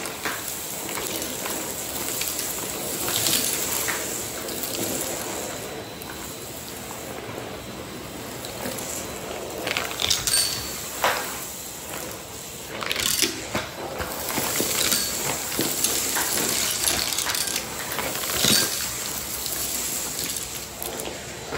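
Vacuum cleaner running with its floor tool worked over a coarse doormat, picking up scattered debris: hard bits click and crackle up the wand irregularly over the steady suction noise, a light crunch.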